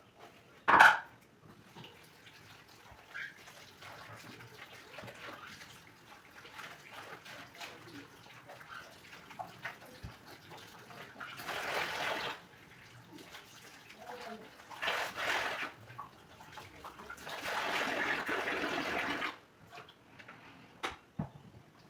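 Running water splashing in three separate bursts of one to two seconds each, with a sharp louder sound about a second in.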